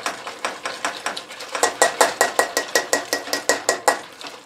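A bundle of wooden skewers whisked fast in a coated metal pot of hot water as cornstarch goes in, clicking against the pot's sides about five times a second. The clicking grows louder about a second and a half in, with a faint ring from the pot, and dies away near the end.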